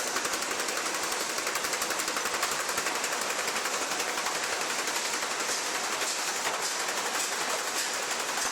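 Steady, rapid mechanical rattle of wood-processing machinery running continuously, cutting off abruptly at the end.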